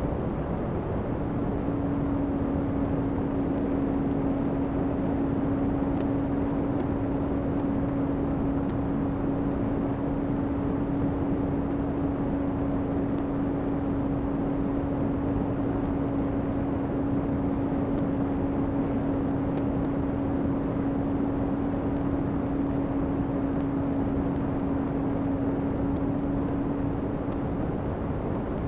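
Electric motor and propeller of an FMS 800mm V-tail RC plane humming at one steady pitch in cruise, which settles about a second in, heard from the onboard camera under steady wind rush over the microphone.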